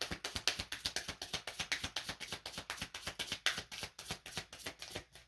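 Tarot cards being shuffled by hand: a quick, uneven run of soft card clicks and flicks, about ten a second, fading off near the end.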